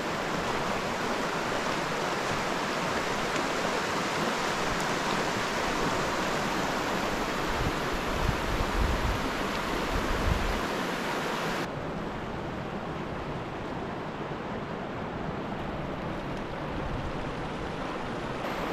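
Steady rush of a shallow mountain river running over gravel and stones. A low rumble comes in a little past the middle, and about two thirds in the rush turns suddenly softer and duller.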